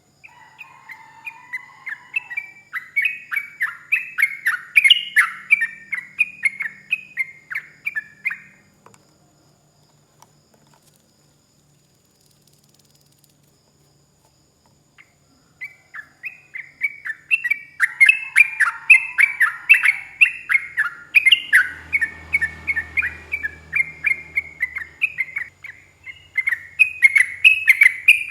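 Yellow-vented bulbul (trucuk) singing a long, fast run of short notes, the sustained 'ropel' song. It stops for about six seconds partway through, then starts again.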